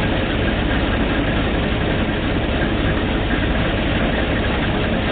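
Engine of a Failing 1250 drilling rig running steadily at a constant speed, a loud, even low-pitched drone with a rapid pulse.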